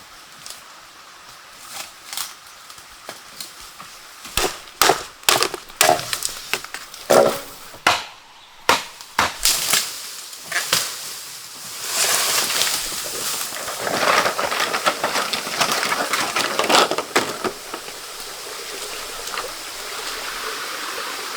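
A series of sharp knocks and cracks, clustered near the middle, followed by a stretch of uneven rustling noise.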